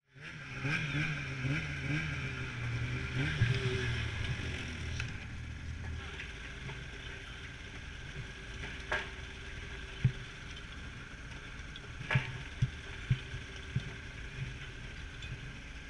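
Snowmobile engine running, its pitch wavering for the first few seconds and then settling to a steadier, quieter idle about five seconds in. Several short sharp knocks sound over the idle in the second half.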